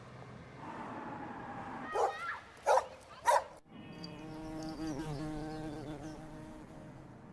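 A dog barking three times in quick succession, about two to three and a half seconds in, followed by a steady insect buzz.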